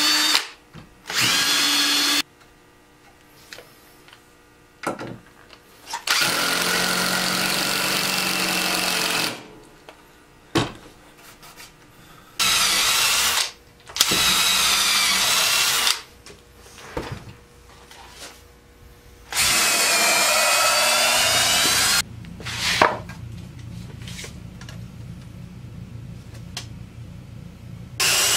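Cordless drill running in about six bursts of one to three seconds each, drilling into a wooden stool frame, its motor whine shifting in pitch as it loads up and eases off.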